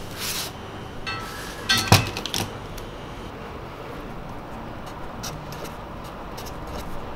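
A sticky-note pad being handled: a rustle, a brief squeak, then the pad set down on a desk with one sharp knock about two seconds in and a few small clicks, followed by faint light taps as a pencil is picked up and used on it.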